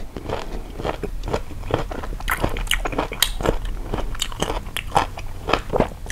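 A person chewing crisp raw sour green mango slices coated in chili salt, close to the microphone: a steady run of sharp, wet crunches and bites.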